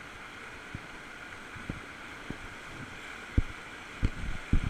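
Steady rush of whitewater around a raft, with a few dull low thumps, the heaviest in the second half.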